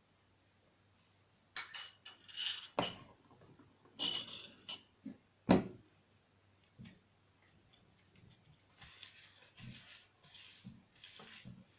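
A utensil scraping and clinking against a plate, gathering up leftover slime. There are bursts of clinks and scrapes, one sharper knock about five and a half seconds in, and softer scraping near the end.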